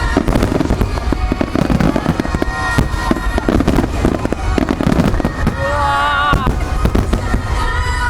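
Aerial fireworks shells bursting in a dense, continuous barrage of booms and cracks over loud accompanying music.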